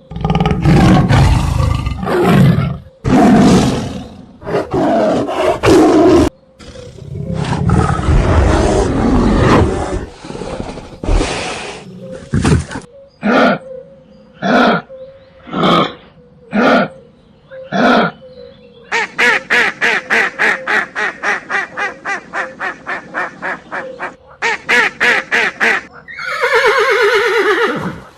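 A run of animal calls: loud, noisy roars over the first six seconds, then a long rough call, a series of shorter grunts about one a second, and a fast run of pulsing calls about four a second. Near the end a pitched, wavering call like a horse's whinny begins.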